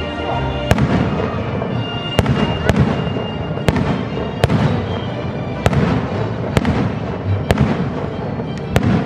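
Fireworks display: about nine sharp bangs at uneven intervals, over continuous crackling from bursting shells.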